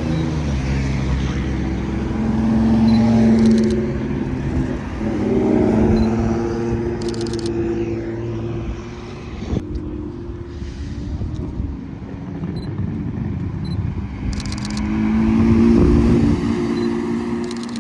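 Car engines running and driving past, the exhaust note swelling and fading three times, loudest near the end.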